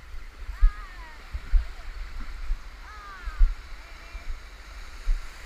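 Shallow surf washing and fizzing over a sandy beach, with dull low thumps on the microphone every second or two.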